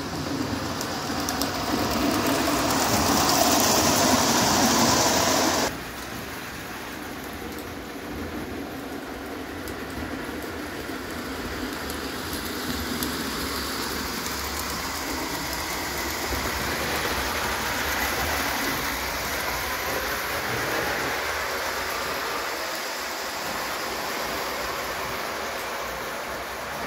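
Märklin 0 gauge live-steam, spirit-fired tinplate locomotive in GNR style running along the track with its coaches, giving a steady rushing, rattling noise. A louder stretch in the first six seconds cuts off suddenly.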